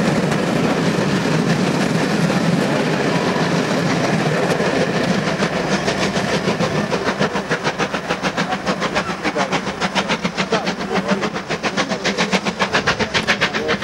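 Steam-hauled passenger train running past on the track, hauled by a BR Standard 2-6-4T tank engine: a dense rumble of the coaches going by, then a regular fast beat, several a second, as the train draws away.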